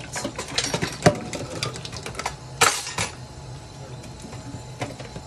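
Kitchen clatter: a quick run of clicks and knocks as dishes and utensils are handled at the counter, with a short noisy rush about halfway through and a few last clicks near the end.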